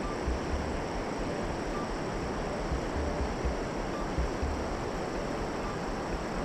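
Steady rushing of stream water, an even hiss, with wind rumbling on the microphone.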